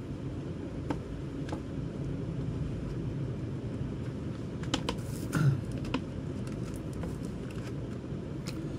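Plastic CD cases being handled, giving a few light scattered clicks and taps, a small cluster about halfway through, over a steady low background hum.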